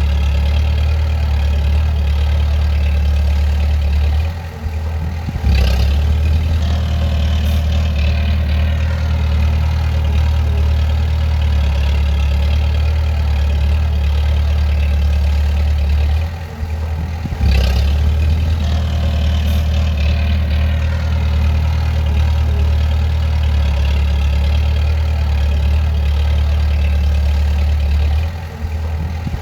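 Bulldozer's diesel engine running steadily with a deep, even hum. Three times, about twelve seconds apart, the engine note sags briefly; the first two sags each end in a sharp knock as the engine note comes back.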